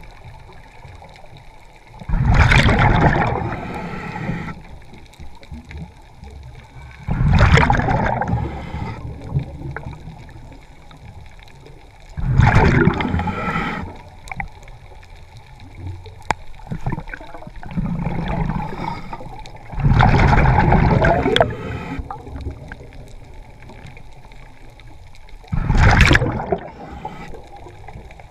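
Scuba regulator exhaust bubbling underwater as a diver breathes out: five exhalations, each one to two seconds long, coming roughly every five to seven seconds.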